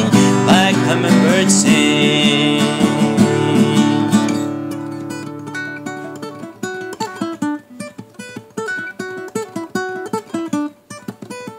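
Acoustic guitar music closing a song: a full, sustained ending that fades out about four seconds in, then single plucked guitar notes picked one after another.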